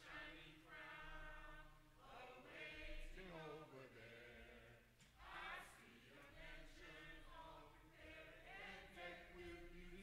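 Congregation singing the third verse of a hymn, faint, with voices held on long, sliding notes.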